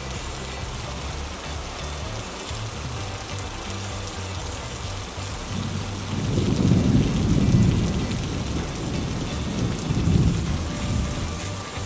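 Heavy rain falling steadily and pelting the camera. A low rumble swells about six seconds in and again, more briefly, near ten seconds.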